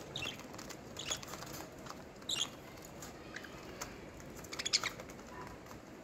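Caged budgerigars giving short, sharp, high chirps, a few scattered at irregular moments.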